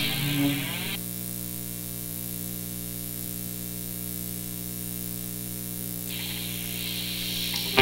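Steady electrical hum with tape hiss on an old cassette demo recording, in a quiet stretch between songs. The last of the preceding sound dies away within the first second, and the hiss grows about six seconds in, just before the next piece begins.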